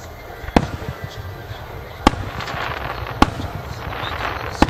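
Aerial fireworks shells bursting: four sharp reports about a second to a second and a half apart, with a dense crackle filling the gaps after the second one.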